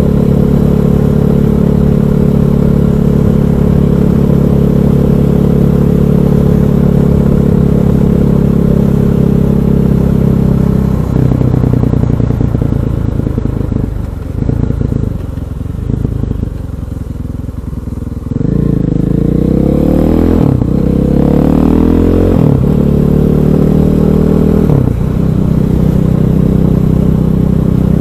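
KTM 500 EXC's single-cylinder four-stroke engine under way: it runs at a steady cruise, then falls off and quietens as the bike slows. About two-thirds of the way through it accelerates hard, rising in pitch through three upshifts, then settles back into a steady cruise.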